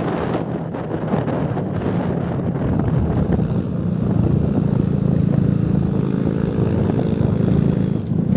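A motor vehicle's engine running steadily, its hum growing a little louder about three seconds in and then holding steady, with road and wind noise underneath.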